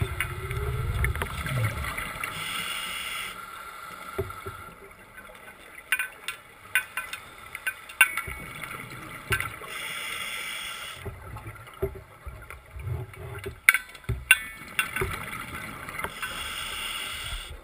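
Underwater sound heard from a Seacraft diver propulsion scooter: the scooter's motor runs steadily underneath while a scuba regulator's exhaled bubbles rush past about every seven seconds, with scattered clicks and low bubbling rumbles.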